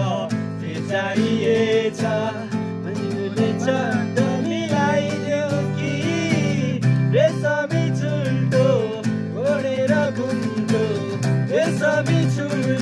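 Background music: an acoustic guitar-led track with a melody line over a steady accompaniment.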